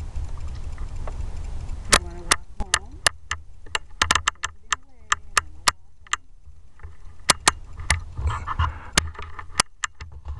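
Irregular sharp clicks and knocks over a low rumble, with a dog whining in wavering notes that rise and fall between about two and six seconds in.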